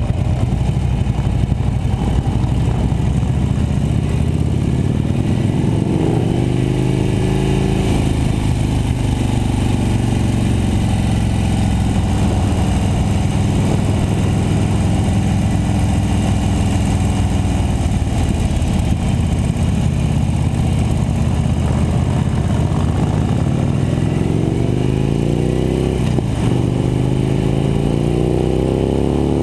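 Cruiser motorcycle engine running under way with low wind and road rumble. Its pitch climbs as the bike accelerates twice, and near the end it drops sharply at a gear change before climbing again.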